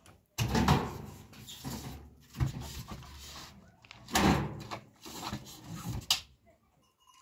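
Metal drums and plastic buckets being shifted by hand: a series of knocks and clatters, about one every two seconds, the loudest near the start and about four seconds in.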